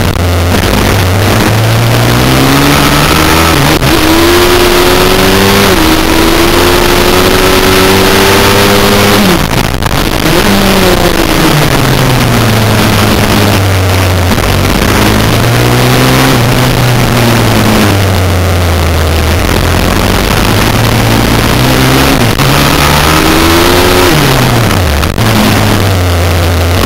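Pit bike's single-cylinder engine heard from a camera mounted on the racing bike, revs climbing and falling over and over as it accelerates and brakes through corners, with a sharp fall about ten seconds in and another near the end. Wind noise rushes over the microphone.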